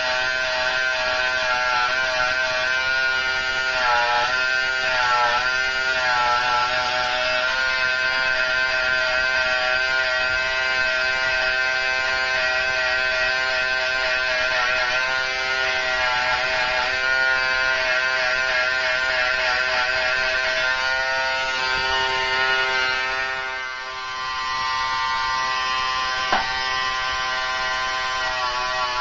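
Corded electric hair trimmer buzzing steadily as it cuts a design into short hair, its pitch wavering at times as the blade works through the hair. The buzz dips briefly near the end, followed by a single sharp click.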